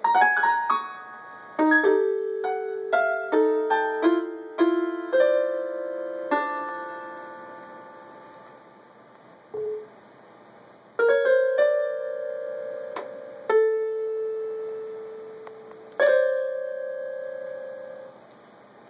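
Electronic keyboard in a piano voice sounding random single notes and small clusters as a cat's paws and body press the keys: a quick, uneven string of notes over the first six seconds, a lull, then a few scattered chords that ring out and fade.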